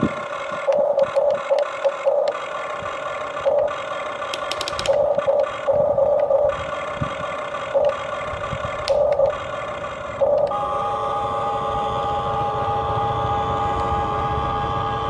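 Electric gear motors of a Huina 1593 RC toy excavator whining, starting and stopping in short spurts through the first two-thirds, then running continuously near the end.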